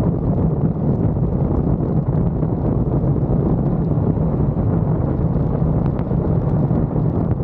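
Wind rushing over the microphone of a roof-mounted camera on a moving vehicle, over a steady low rumble of the vehicle driving.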